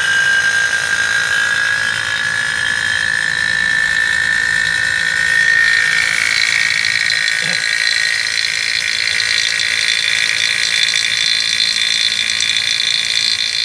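Refrigeration vacuum pump running on a split-type air conditioner's line set: a loud, steady high whine that climbs slowly in pitch and steps up about six seconds in. The note turns shriller as the system nears a deep vacuum of about 30 inches of mercury, with no more air being drawn out.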